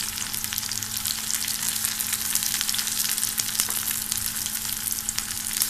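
Diced onion sizzling in hot soybean oil in a kadai, a steady hiss with many small crackles as it fries toward brown.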